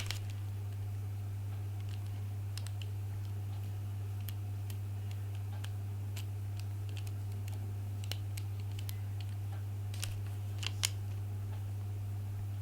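Irregular small clicks of a Master Lock TSA combination luggage lock being handled, its dials and shackle worked, with the loudest clicks near the end. A steady low hum runs underneath.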